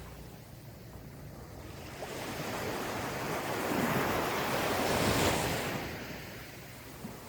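Gentle ocean waves on a sandy shore. One wave swells from about two seconds in, breaks and washes up loudest around five seconds in, then fades as it draws back.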